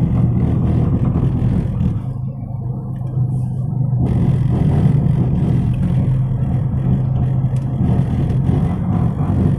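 Car engine and road noise heard from inside the cabin while driving, a steady low hum; the higher road noise eases off about two seconds in and picks up again about four seconds in as the car speeds up.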